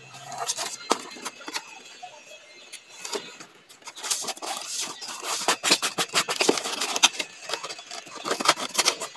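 Craft handling noise: a glue brush scraping on a cardboard box, then cotton fabric picked up and rustled over a newspaper-covered table, the rustling and crackling growing much denser from about four seconds in.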